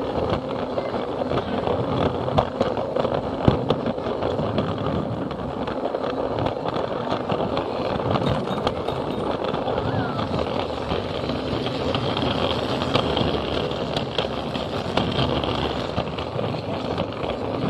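Plarail toy train carrying a camera car, running on plastic track: the small battery motor hums and the wheels rattle and click over the rail joints.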